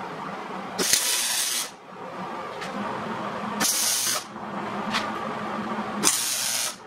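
Electric arc welder tack-welding steel chassis tubing: three short bursts of arc hiss, each under a second, about two and a half seconds apart.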